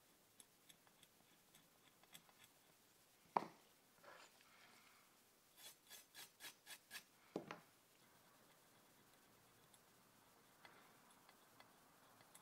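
A toothbrush scrubbing in quick strokes over an etching stencil stuck to a steel blade, about six strokes in a second and a half. The strokes fall between two sharp knocks, the first the loudest sound. Faint scratching ticks from a pointed pick on the stencil come before them.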